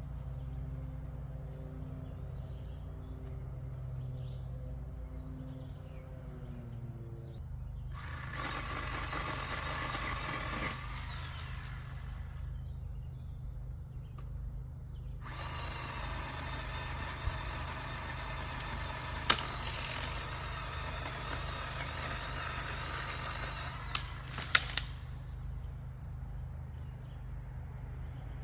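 Pole chainsaw cutting a high tree branch, in two stretches of cutting of about three seconds and then about nine seconds, over a steady low hum. A few sharp cracks come during the second cut.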